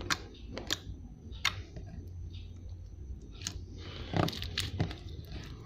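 Clear homemade slime being squeezed and kneaded by hand, giving scattered wet clicks and squelches, a few louder ones about four seconds in.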